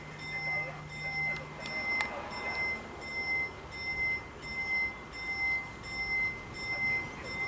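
Italian level-crossing warning bell, an electronic ding played through the crossing's TM2000 loudspeakers, repeating evenly about one and a half times a second. The crossing is active, warning that a train is approaching.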